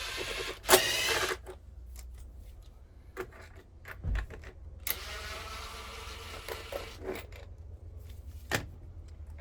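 The top cover of a Poulan chainsaw being pried and pulled off by hand. Plastic scrapes twice, once near the start and again for about two seconds midway, with a handful of sharp clicks and knocks in between.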